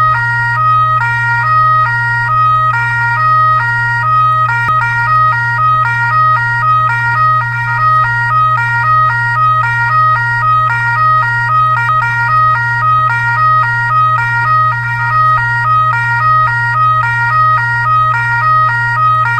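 Fire truck siren sounding a two-tone pattern, switching quickly and evenly back and forth between a high and a low pitch, over a constant low hum.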